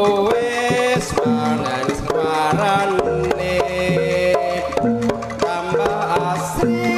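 Live Javanese jaranan music: hand drums beating quickly under a tuned melody that steps between held notes.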